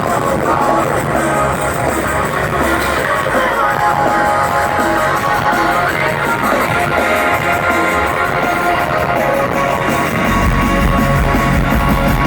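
Live rock music from a concert sound system: electric guitars and drums playing loud and steady, the low end growing heavier about ten seconds in.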